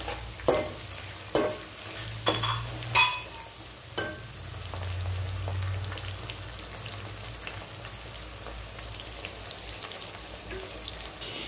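Sliced onions, garlic, dried red chillies and curry leaves sizzling in hot oil in an aluminium kadai. A metal spoon knocks and scrapes against the pan about five times in the first four seconds, then the sizzle carries on alone.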